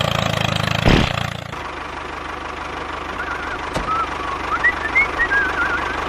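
Low, even engine-like chugging from the toy tractor for about the first second and a half, with a sharp thump about a second in. Then a quieter steady hum, with a few short wavering whistle-like chirps near the end.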